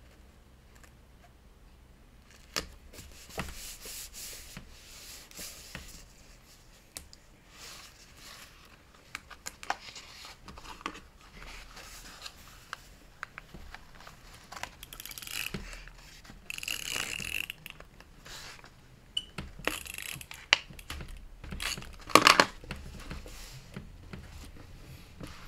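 Paper and card being handled: irregular rustling, crinkling and sliding, with scattered taps and clicks. The loudest part is a quick cluster of knocks about 22 seconds in.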